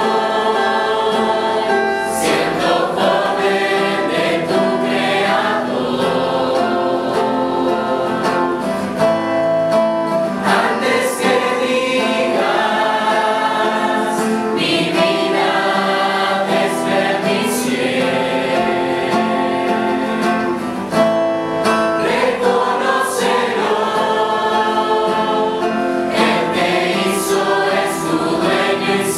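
Mixed youth choir singing a Christian song in unison, accompanied by a guitar.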